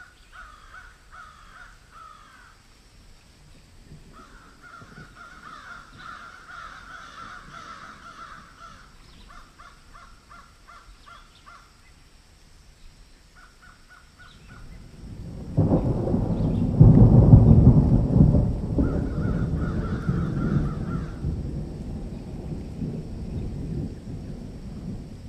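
Birds calling repeatedly, then a loud low rumble that begins a little past halfway, swells within a couple of seconds and slowly fades while staying the loudest sound.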